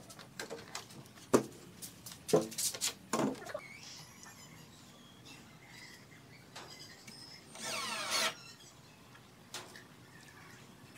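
A few sharp knocks and clunks from handling the wooden door and the steel hanger strap on its edge, then a short high whirr about eight seconds in.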